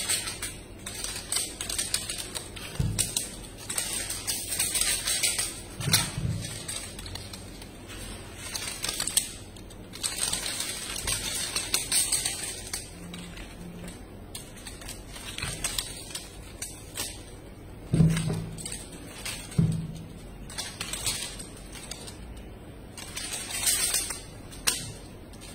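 Scratchy rustling and scattered clicks from a kitten playing and leaping on a fleece blanket, with a few dull thumps.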